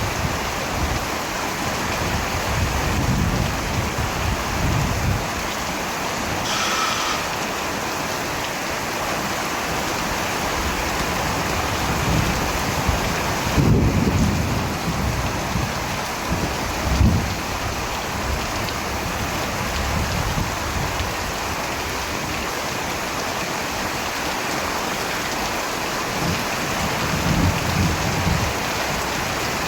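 Steady rain, with low rolls of thunder rumbling up several times; the strongest come about halfway through.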